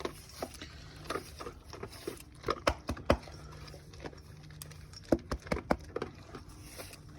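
Dog eating from a bowl: irregular sharp crunches and clinks, coming in clusters.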